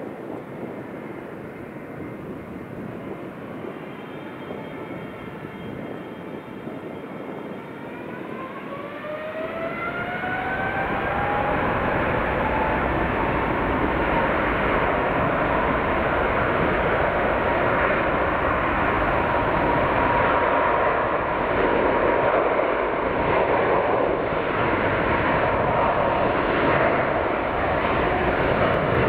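Boeing 777-300ER's twin GE90-115B turbofans spooling up to takeoff thrust: a whine rising in pitch from about eight to eleven seconds in, then a loud steady jet roar as the airliner accelerates down the runway.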